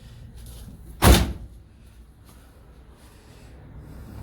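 A single loud clunk about a second in from the door latch of a 1972 Dodge D100 pickup, as the door is worked with a newly fitted refrigerator-style handle, followed by a short ringing tail.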